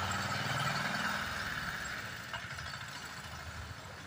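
A motor vehicle's engine running at low revs, a steady low hum that fades away over the few seconds.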